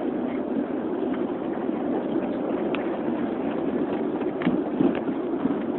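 Steady engine and running noise of a vehicle, low and even, with a few faint clicks.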